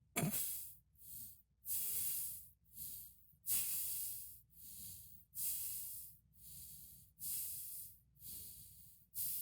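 A person breathing loudly in and out through the nose, about one hissing breath a second, alternating longer louder breaths with shorter softer ones: sneaking breaths through the nose while pretending to hold his breath.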